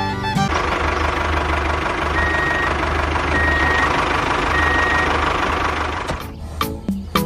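A vehicle engine running steadily while a reversing alarm beeps three times, about a second apart. Music plays briefly at the start and comes back near the end.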